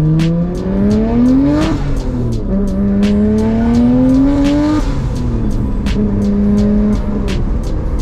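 Nissan Skyline R32 GT-R's twin-turbo RB26 straight-six heard from inside the cabin, pulling up through the revs. The revs drop at a gear change about two seconds in, climb again, drop at another shift around five seconds in, then hold a steady cruise before easing lower near the end.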